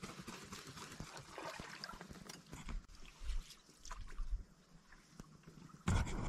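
Canoe paddling: water swishing and trickling off the paddle blades with each stroke. A louder, low rumble starts near the end.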